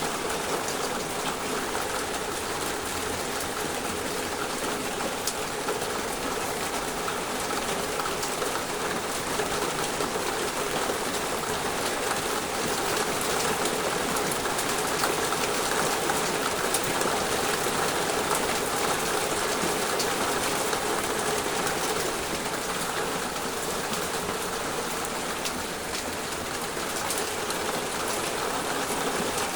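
Torrential rain pouring down in a steady, dense downpour, with a constant hiss and fine drop impacts on surfaces.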